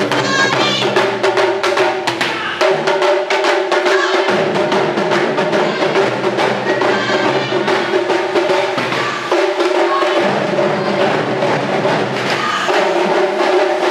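A taiko ensemble beating large barrel drums in a fast, driving rhythm of rapid strikes, with a held tone sounding alongside.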